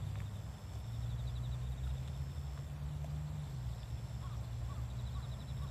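Outdoor ambience: a steady low wind rumble on the microphone, with a faint rapid high ticking trill and a few short faint chirps near the end.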